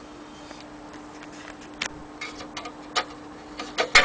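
Scattered light clicks and small knocks from handling the projector's sheet-metal lamp housing, louder and closer together near the end as a hand reaches in to the bulb, over a faint steady hum.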